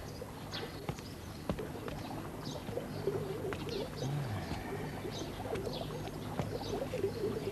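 Birds chirping and calling, short high calls scattered throughout, over a steady low hum.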